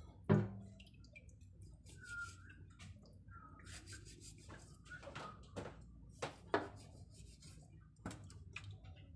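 Kitchen knife scraping salpo over a stainless steel sink, with scattered sharp knocks of the blade and hands against the steel. The loudest knock comes just after the start.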